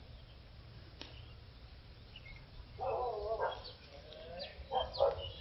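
Animal calls: a wavering call about three seconds in and a shorter one near the end, over faint high chirps of small birds.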